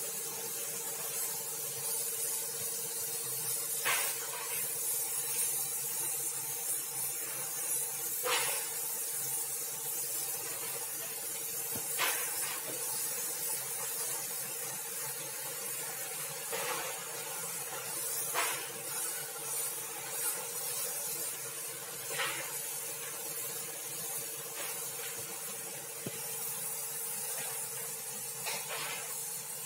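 Gravity-feed spray gun atomising automotive paint onto a car bumper: a steady hiss of compressed air and paint spray, with brief louder rushes every few seconds.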